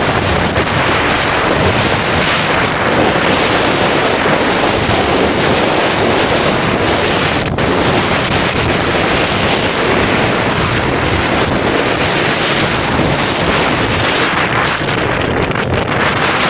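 Steady wind rushing over the microphone of a camera riding in a moving vehicle, with road and traffic noise beneath it.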